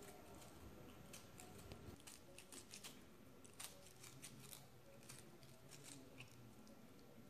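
Near silence with faint, irregular little snips and clicks of a small knife cutting cherry tomatoes in the hand into small pieces.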